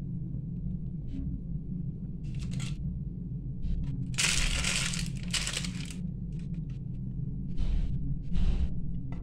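Several short bursts of rustling and crinkling over a steady low hum, the loudest lasting about a second, a little after four seconds in: handling noise as pastries are picked off a baking-paper-lined tray.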